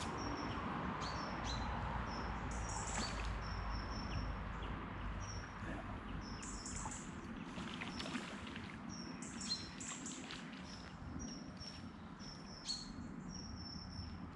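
Small birds chirping and singing: many short, high calls and whistled notes scattered throughout. Underneath is a steady low background rumble.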